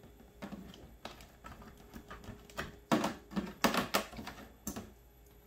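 Irregular clicks and knocks from a computer keyboard being handled and plugged in, with a dense cluster of louder knocks from about two and a half to five seconds in.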